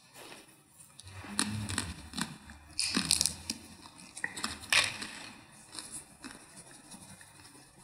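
Soft handling noises at the altar: scattered clicks, rustles and crinkling, the loudest cluster about three seconds in, over a faint low hum.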